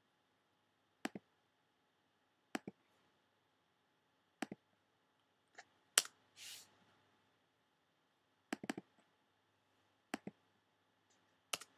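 Computer mouse clicks: sharp paired clicks of a button being pressed and released, every one to two seconds, with a quick run of clicks near the two-thirds mark. A brief hiss sounds about six seconds in.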